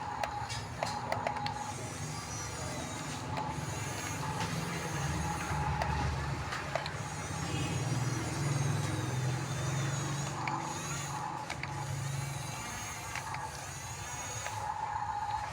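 Radio-controlled model bulldozer running, its small electric drive motors and gearing whining, over a low engine-like rumble that swells in the middle with a few small clicks.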